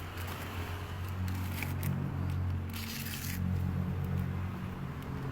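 Small Honda engine running at a steady idle, with a few short clicks and scrapes of handling over it.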